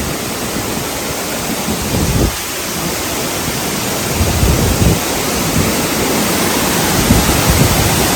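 Steady rush of a waterfall in heavy flow, with gusts of wind and spray off the falls buffeting the microphone in uneven low rumbles.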